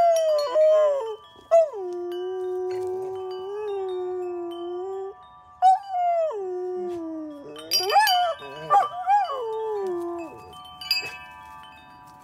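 Golden retriever howling along to ringing metal tube wind chimes: long drawn-out howls that hold a low note, then slide and waver higher about eight seconds in, over the chimes' lingering tones. The chimes are struck again about eight seconds in and near the end.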